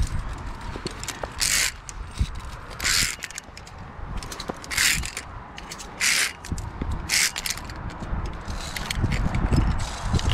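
Short scraping rubs of a climber's hand and gear against a via ferrata's steel cable and rock, about five of them a second or more apart, over an uneven low rumble from handling and movement that swells near the end.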